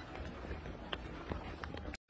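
Faint field sound of a large troop of macaques feeding on dry ground: a low steady rumble with a few soft clicks and rustles.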